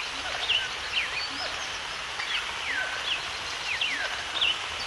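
Several birds chirping, with many short whistled notes that mostly fall in pitch, several a second, over a steady hiss of background noise.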